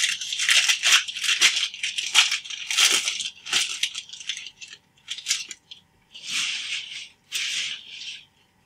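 Wrapper of a 2016 Bowman Draft jumbo pack crinkling and tearing as the pack is opened by hand: a dense crackle for the first few seconds, then a few shorter separate rustles near the end.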